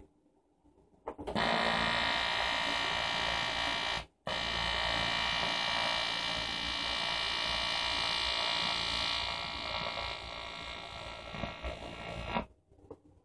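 Argon (TIG) welding arc buzzing steadily. It is struck about a second in, breaks off for a moment around four seconds, is struck again, and goes out near the end.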